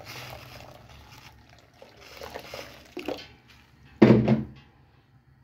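Hot water pouring from a jug into a stainless steel pot of green peas, running for just over a second and then trailing off. About four seconds in comes a single sudden loud knock.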